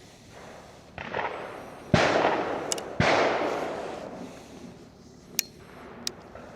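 Shotgun shots: a faint report about a second in, then two loud reports about a second apart, each trailing off slowly. Among them is a .410 over-and-under fired from its top, full-choke barrel at a pattern plate.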